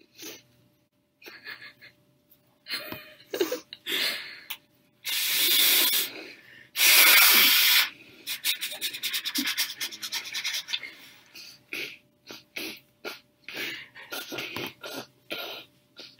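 Noses being blown into paper tissues: two long hard blows about five and seven seconds in, the second the loudest, amid shorter sniffs and snorts. After the second blow comes a quick run of short puffs.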